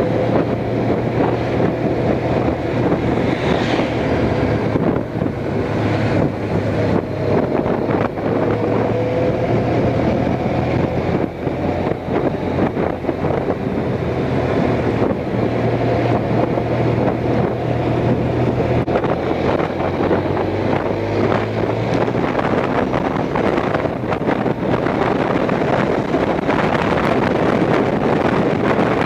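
Honda Crosstourer's V4 engine running steadily at road speed, heard from on the bike, under heavy wind rush on the microphone. The engine note rises and falls slightly a few times as the throttle changes.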